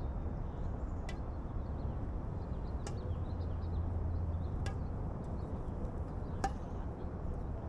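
Badminton rally: a racket striking a shuttlecock four times, crisp smacks evenly spaced a little under two seconds apart, over a steady low rumble.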